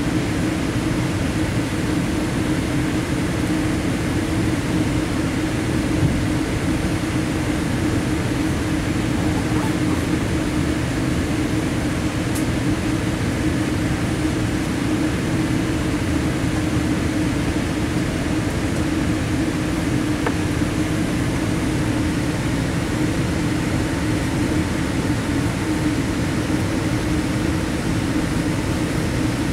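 Steady airliner cabin noise while taxiing in after landing: the jet engines at idle and the cabin ventilation, a constant hum under an even rushing hiss.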